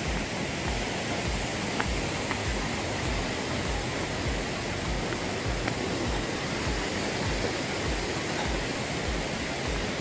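A steady rushing noise with regular low thuds a little over twice a second, the footsteps of someone walking with the camera on a stone path.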